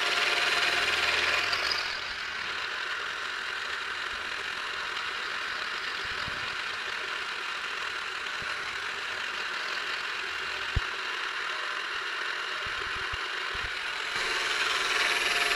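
A milling machine's spindle runs a 3/16-inch end mill at about 1120 rpm, cutting steadily into the workpiece while a stepper motor turns the rotary table beneath it. There is a single sharp click about eleven seconds in.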